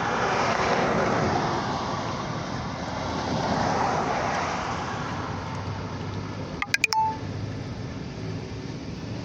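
Road vehicles passing: a rushing noise that swells twice and fades, then a brief cluster of sharp clicks about seven seconds in.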